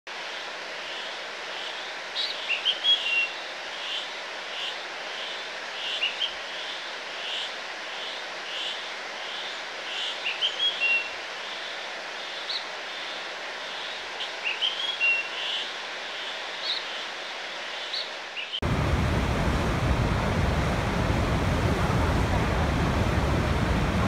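Mountain stream cascading over boulders: a steady rushing hiss of water, with a small bird singing a short chirping phrase every few seconds over it. About three-quarters of the way through, it cuts abruptly to the louder, deeper, steady rush of a large waterfall.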